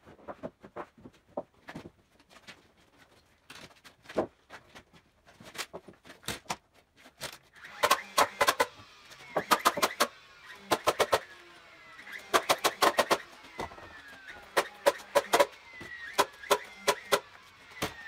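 Framing nailer driving nails into 2x6 wall framing: from about eight seconds in, clusters of sharp, loud shots in quick succession, with a faint whine falling in pitch between the clusters. Before that there are scattered lighter knocks of lumber being handled.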